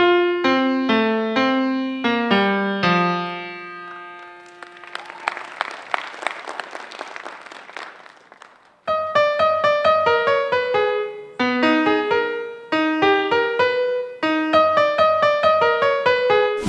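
Electronic keyboard played with a piano sound: a melody of single notes over lower notes that fades out about four seconds in, then clapping for a few seconds. After about nine seconds a new passage of piano notes starts abruptly.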